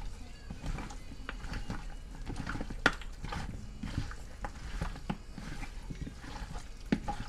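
Bare hands mixing seasoned oxtail pieces in a plastic bowl: irregular wet squelches and knocks of meat pieces against each other and the bowl, the sharpest a little under three seconds in.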